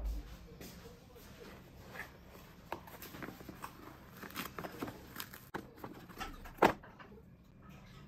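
Cardboard boxes of tea capsules being handled on a wooden table: light taps, rustles and small clicks as a box is picked up and opened and plastic capsules are pulled out, with one sharp, louder click a little before the end.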